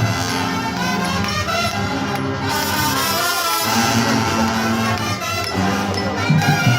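Marching brass band playing, the brass holding long chords over light percussion, with the drums coming back in strongly near the end.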